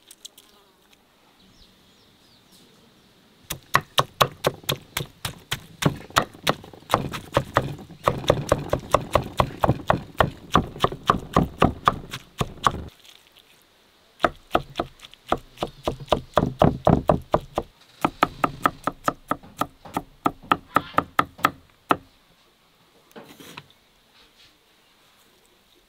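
Large kitchen knife chopping soft roasted peppers, tomatoes and eggplant on a thick wooden cutting board, the blade knocking the board in rapid strokes, about five or six a second. The chopping comes in two runs of several seconds with a short pause between and stops a few seconds before the end.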